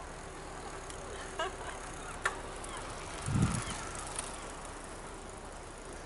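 Bicycle riding along a paved path, heard from the moving rider: a steady rush of tyre and wind noise with a few light clicks and rattles, and a brief low thump about three and a half seconds in.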